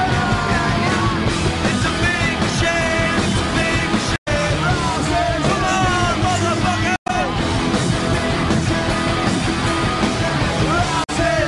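Hard rock music with distorted guitars and drums, and a lead line bending in pitch above them. The sound cuts out completely for an instant twice, about four and seven seconds in.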